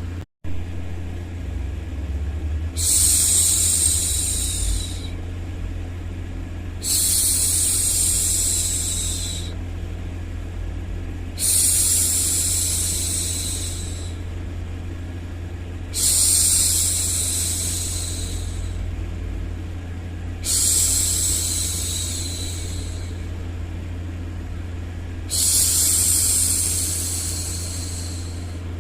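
A woman's voice making long, even 'shhh' hushing sounds, six of them, each about two seconds long and coming about every four and a half seconds, over a steady low rumbling white noise. The sound cuts out for an instant just after the start.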